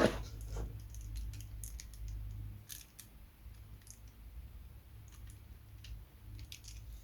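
Faint, scattered clicks and light taps of small tools and parts being handled, over a low steady hum.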